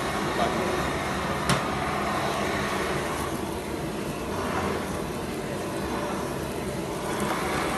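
Steady rushing noise of a lit gas stove burner under a frying pan, with one sharp click about a second and a half in.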